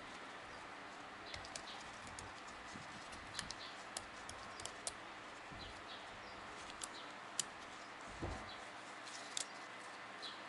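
Light, irregular metallic clicks and ticks as piston rings are handled and worked into the ring grooves of an Isuzu 4JA1 diesel piston, over a steady faint hiss. A soft low thump comes a little after eight seconds.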